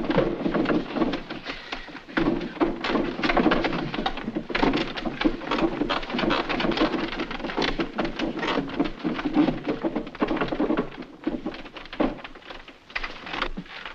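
Wooden triple bunk bed and ladder creaking, rattling and knocking under a climbing man, a dense crackling clatter that eases off briefly about eleven seconds in.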